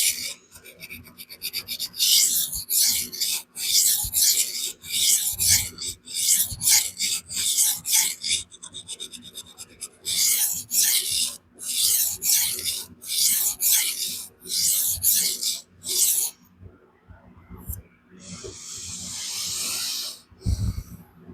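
Spyderco Magnamax steel knife blade drawn in quick strokes across a diamond sharpening stone, about two scrapes a second with brief pauses, grinding away a slightly convex factory edge. Near the end comes one longer, smoother stroke and a low thump.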